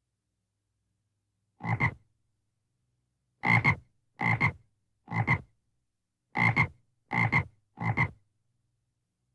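A frog croaking seven times, each croak a short double pulse: one croak about two seconds in, then six more in a run of roughly one a second.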